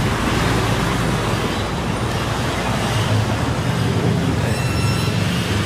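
Steady low rumble and hiss of background road traffic.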